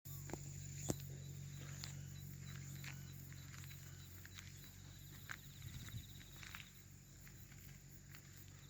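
Footsteps and light knocks outdoors over a low steady hum that weakens about four seconds in, with a fast high insect trill from about four to seven seconds in.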